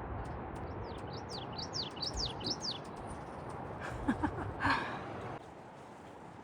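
A bird singing a quick run of about seven high, falling notes, with a few short chirps a couple of seconds later, over wind rumble on the microphone that drops away about five seconds in.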